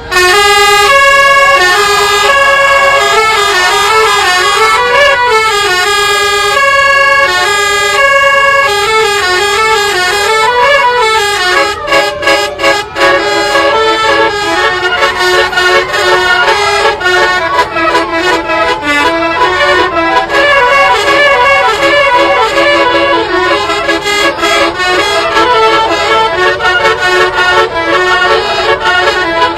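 Basuri 'telolet' horn, a multi-trumpet musical bus horn, playing a loud melody of steady notes that step from one pitch to the next. About twelve seconds in, the notes start coming faster and choppier.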